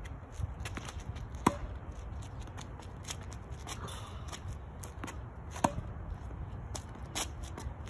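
Tennis racket hitting balls fed by a ball machine: two sharp hits about four seconds apart, with fainter ticks and scuffs of feet and balls on the hard court in between.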